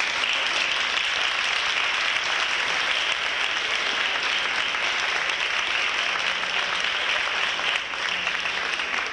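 Audience applauding, a steady round of clapping that eases off near the end.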